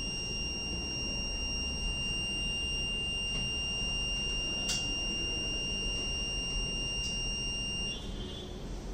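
Rain-alarm buzzer on a microcontroller kit sounding one steady high-pitched tone as its rain alert, cutting off about eight seconds in.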